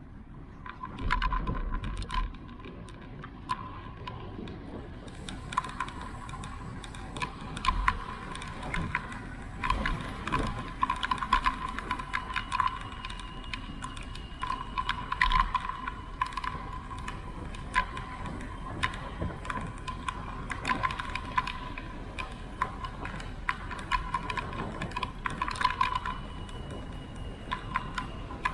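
Bicycle on the move, its parts rattling and clicking in quick irregular ticks over the road surface, with wind rumbling on the microphone.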